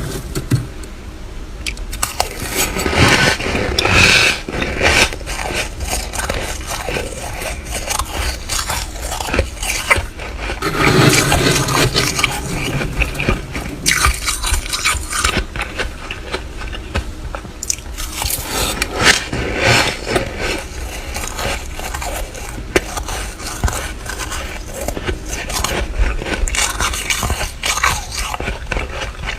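Flaky freezer frost being bitten and chewed close to the microphone, crunching and squeaking in a dense, irregular run of crackles, with some scraping.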